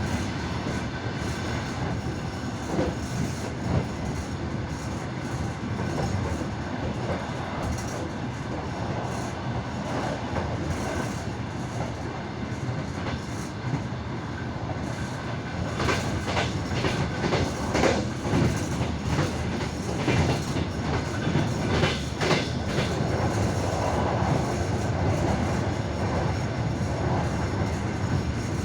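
Express train's wheels clattering over the rails: a continuous running rumble broken by sharp clickety-clack knocks at the rail joints, louder and more frequent in the second half.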